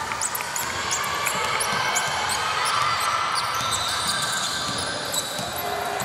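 Basketball game play: the ball bouncing on the court, with many short, high squeaks of sneakers on the floor over a background murmur of voices.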